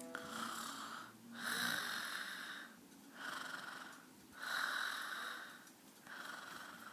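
Raspy, wheezy breathing or snoring sounds in a steady rhythm, one breath about every second and a half.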